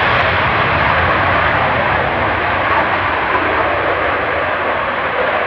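Boeing 757's twin jet engines at takeoff thrust as the airliner lifts off and climbs away: a loud, steady rushing roar that eases slowly toward the end.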